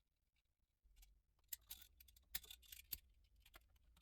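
Near silence with a scattering of faint, short clicks and ticks, like small handling noises.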